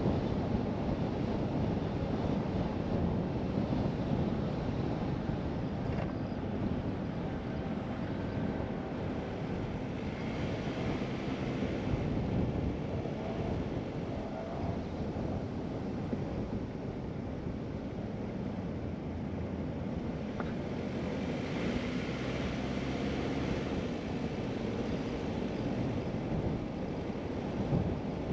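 A car driving along a paved road: steady tyre and wind noise, a low rumble that stays even throughout.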